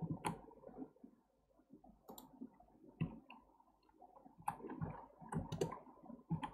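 Irregular clicks of a computer mouse and keyboard keys, single or in quick pairs with short gaps between.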